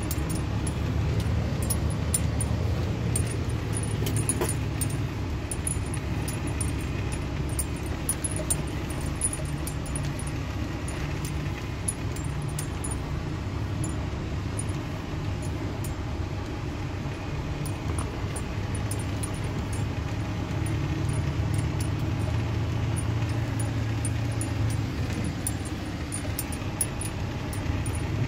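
Steady low drone of a truck's engine and tyres heard inside the cab while driving over a rough dirt surface, with frequent light rattles and clinks from loose parts in the cab.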